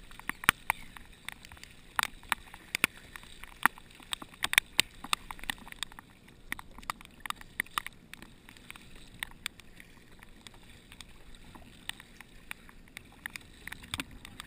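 Sea kayak paddling on open water: many irregular sharp ticks and small splashes of water dripping off the paddle and slapping against the hull, over a low steady wash.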